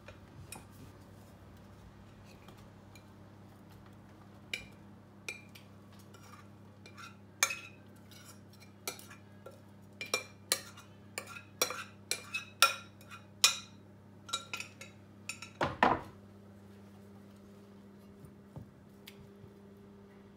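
A metal spoon clinking and scraping against a mixing bowl and a non-stick frying pan as grated potato mixture is spooned into the pan and patted down. It is a run of sharp clinks starting about four seconds in, thickest in the middle, with one heavier knock near the end.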